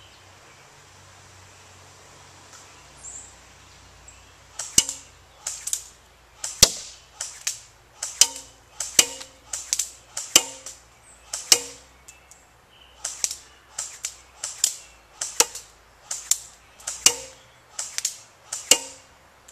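CYMA AK-47 airsoft electric gun firing single shots: a string of sharp clacks at an uneven pace of one or two a second, beginning about five seconds in.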